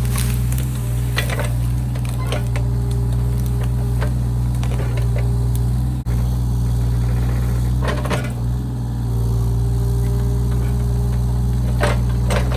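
Mini excavator engine running steadily under load, with irregular sharp cracks and snaps of roots and saplings being torn out as it digs.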